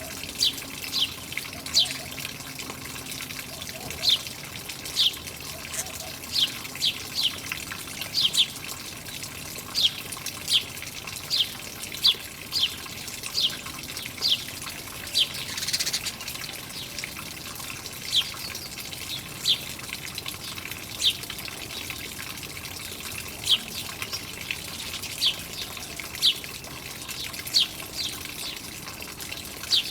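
Small birds chirping over and over, short falling chirps about one or two a second, over steadily trickling water. A short rush of noise comes about halfway through.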